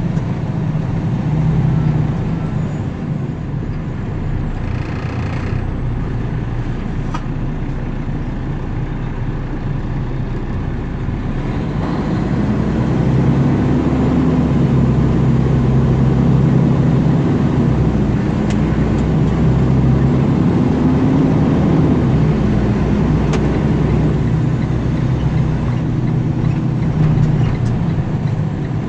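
Vehicle engine and road noise heard from inside the cab while driving in traffic. The engine note rises about twelve seconds in as it speeds up, wavers, and eases back down a little after twenty seconds.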